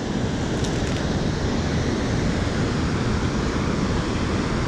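Steady rushing of river water pouring out through a dam's spillway gates.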